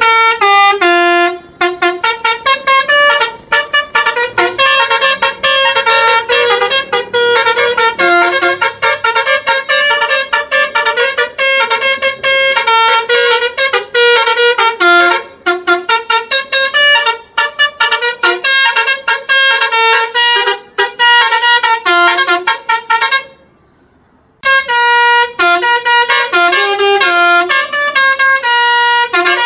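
A basuri telolet musical horn on a tour bus plays a fast tune of short horn notes that step up and down in pitch. It breaks off for about a second near the end, then starts again.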